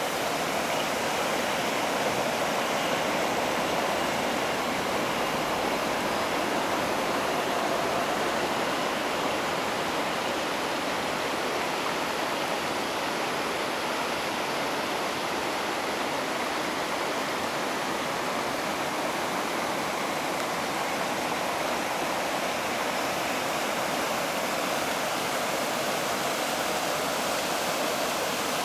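River water rushing steadily over a low weir and stony riffles, a constant even roar.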